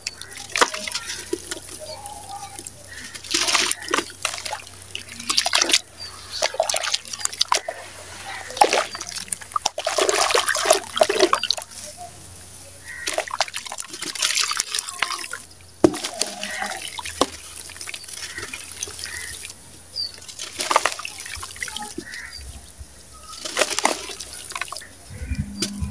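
Hands crumbling chunks of dry sand-cement over a basin of water: gritty crunching as the chunks break, with sand and bits splashing and trickling into the water in irregular bursts.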